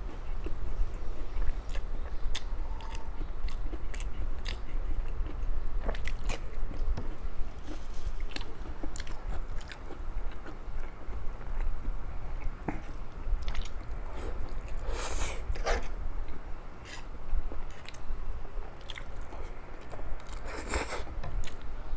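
A person eating close to the microphone: chewing and biting, with crunches and mouth clicks. There are two longer, louder noisy bursts about fifteen and twenty-one seconds in, over a low steady hum.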